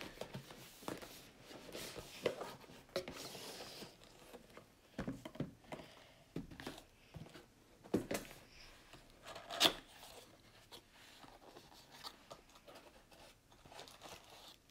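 Cardboard lava-lamp box being handled and opened: irregular rustling, scraping and tearing of the packaging, with a few sharp knocks, the loudest about ten seconds in.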